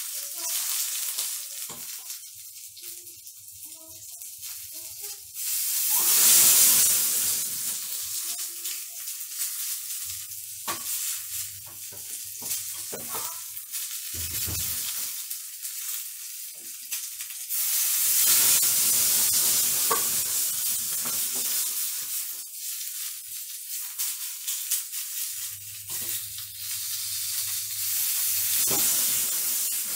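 Deboned chicken thigh frying in a pan, sizzling in surges that swell loudest about six seconds in and again about eighteen seconds in, with occasional clicks of a utensil against the pan.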